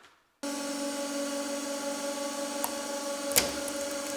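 A 150-ton hydraulic press's pump starts abruptly about half a second in and keeps running steadily with a hum and hiss, driving the ram onto a roll of braided fishing line. There is a faint click partway through and a sharp crack about three and a half seconds in.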